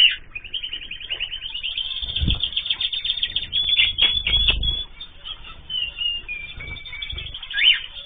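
Small cage birds, canaries and zebra finches, chirping in a fast run of short notes that thins out into scattered calls, with wings fluttering and a few dull thumps. The sound is cut off above its high end, as through a security camera's microphone.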